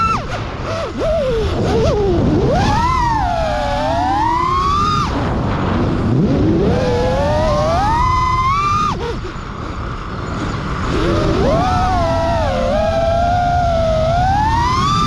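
FPV freestyle quadcopter's brushless motors and propellers whining. The pitch swoops up and down with the throttle several times, over a steady rush of noise.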